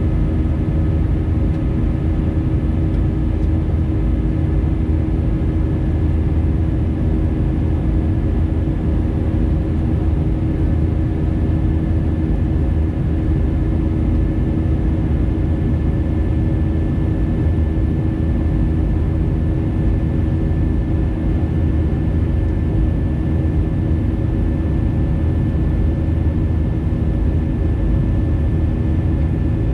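Airbus A320neo jet engines running steadily: a constant low rumble with a steady hum on top, unchanging throughout.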